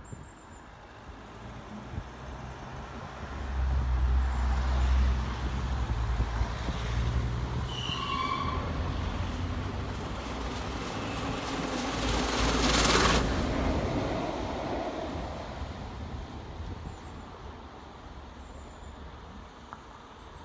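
A1 Pacific steam locomotive No. 60163 Tornado passing with its support coach: a low rumble swells and then fades away. A loud rushing hiss peaks about two-thirds of the way through.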